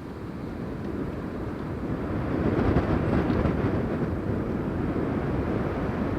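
A train passing: a deep rumble that swells over the first few seconds, is loudest about three seconds in, then eases off slightly.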